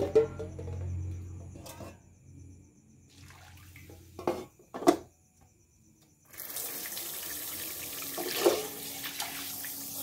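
Water being poured out of a pot in a steady splashing stream for the last few seconds, after two short knocks of cookware around the middle.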